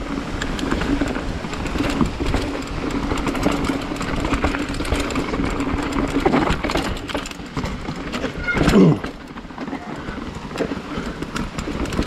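Mountain bike rolling down rocky dirt singletrack: tyres crunching over dirt and stones and the bike clattering and knocking over rocks and roots. A steady buzz runs through the first half, and a brief falling sound comes about three-quarters of the way through.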